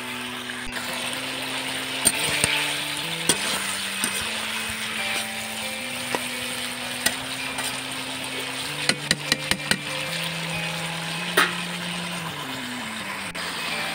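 Eggplant and potato curry sizzling and simmering in a cast-iron wok, with a metal spatula clicking against the pan now and then, including a quick run of about six taps some nine seconds in. Soft background music with held notes runs underneath.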